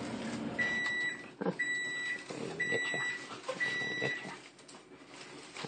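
Four electronic beeps, about one a second, each about half a second long on one steady high pitch, from an appliance or timer beeper, over a rustling of leaves in a cage.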